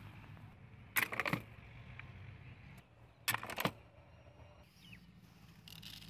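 Two short bursts of rattling clicks, about two seconds apart, from hands handling a plastic-basket bird trap with its cardboard and bamboo-stick parts.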